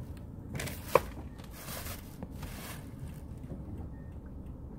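Low, steady road rumble inside a moving car, with a sharp click about a second in and rustling around it and again shortly after.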